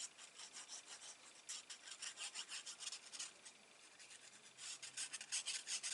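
Paper or card stock being rubbed with quick, even strokes, in two runs with a short pause between.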